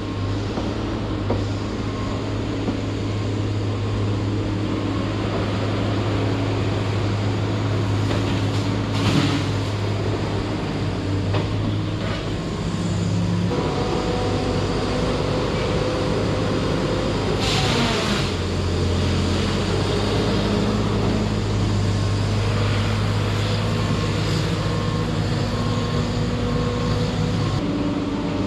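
Hot saw (feller buncher) diesel engine running steadily at working speed, its tone shifting now and then as the machine works, with a brief rush of noise about seventeen seconds in.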